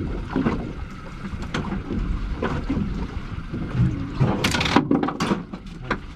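Steady low rumble with wind and water noise aboard a fishing boat at sea, broken by scattered sharp knocks and a louder burst of noise about four and a half seconds in.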